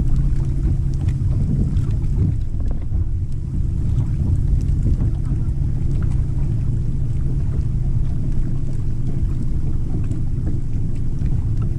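Steady wind buffeting the microphone and water against the hull of a bass boat on choppy water, a continuous low rumble with a faint steady hum underneath.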